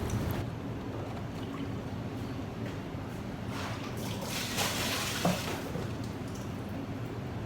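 Water running and trickling, swelling to a louder pour about four to five seconds in, with a short knock just after.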